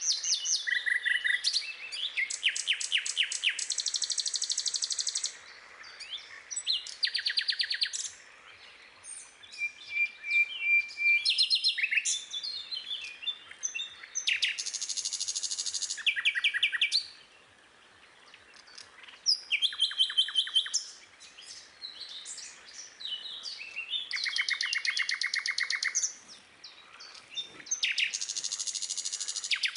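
A songbird singing in long phrases of rapid repeated notes and buzzy trills, broken by short pauses.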